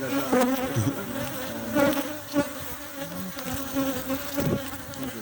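Honeybees buzzing: a steady hum from many bees, with single bees flying close past and their pitch briefly rising and falling.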